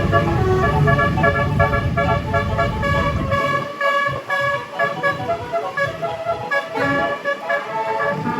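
Bus telolet horn, a 36-note Basuri multi-tone horn, playing a quick tune of stepped notes. A low rumble sits under it for the first three and a half seconds, then falls away.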